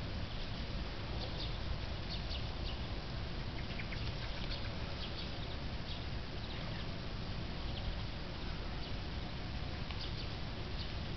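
A flock of fieldfares calling: many short, high calls scattered throughout, over a steady low background rumble.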